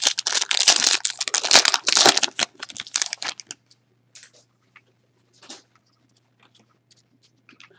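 A trading-card pack's wrapper being torn open and crinkled for about three and a half seconds, then a few faint rustles and taps as the cards are handled.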